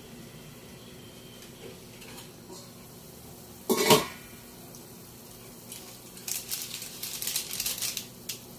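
Cookware at the stove: one short, loud clatter with a hiss about four seconds in, as steam rises off the hot cooking, then about two seconds of quick clinking and scraping of a metal utensil in a pan with sizzling, near the end.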